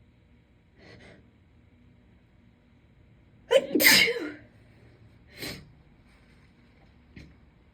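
A woman's single loud induced sneeze about three and a half seconds in, with a sharp catch and then the full blast. A faint intake of breath comes before it, and a shorter breath sound about a second after.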